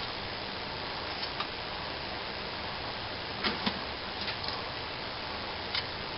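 Steady background hiss with a few faint, light clicks and taps scattered through it, from a knife blade shaving curls off a wooden stick.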